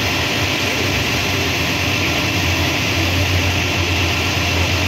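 Steady loud roar of a fire engine's motor and pump running to feed the hose line, with a low hum underneath and a hiss over it.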